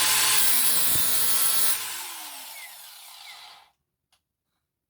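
Dewalt DCG412N 18V cordless angle grinder with a 115 mm cutting disc grinding the edge of a steel mower blade. The trigger is released a little under two seconds in, and the disc spins down with a falling whine, stopping near the end.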